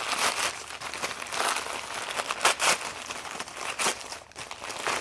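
Packing material being handled and pulled apart while parts are unpacked: irregular crinkling and rustling.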